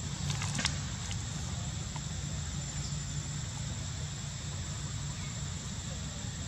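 Steady low rumble of outdoor background noise, with a few faint clicks in the first second.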